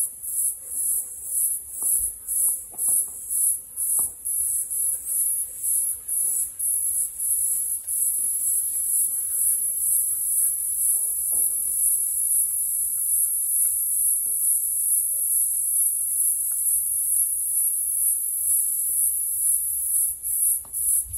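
High-pitched insect chorus, a steady buzzing that pulses about twice a second for the first several seconds, then runs more evenly.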